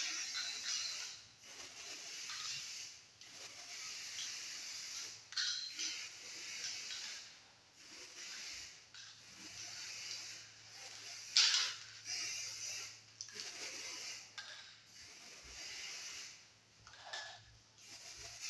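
Aerosol spray-paint can hissing in repeated short bursts, with brief pauses between them, as paint is sprayed on.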